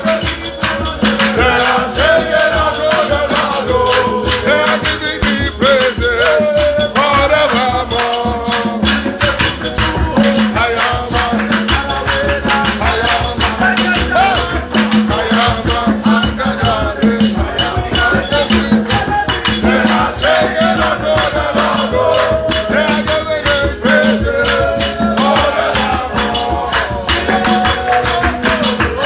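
Worship music playing: a shaken rattle keeps a dense, even rhythm over a steady beat and melodic lines.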